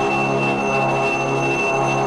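Harmonium chords pulsing in an even rhythm under the steady high ring of Tibetan singing bowls.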